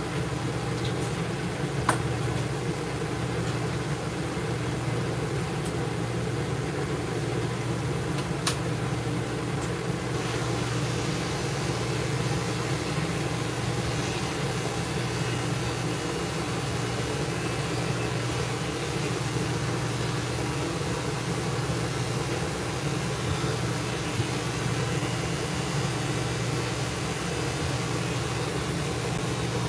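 Steady low mechanical hum from the grooming van's equipment, with a few faint clicks in the first ten seconds and a brighter hiss from about ten seconds in.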